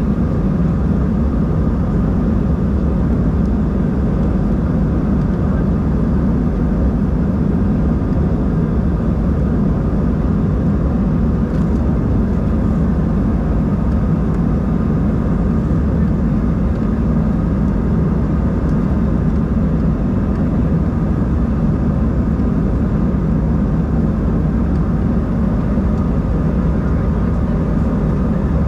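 Steady cabin drone inside an Embraer 190-E2 airliner: engine and airflow noise, deep and even, with a few faint steady tones above it.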